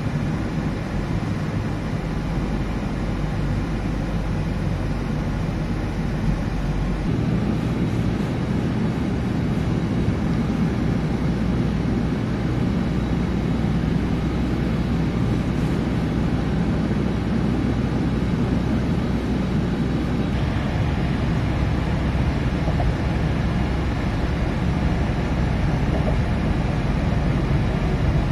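Car cruising on a highway, heard from inside the cabin: a steady low rumble of tyres and engine.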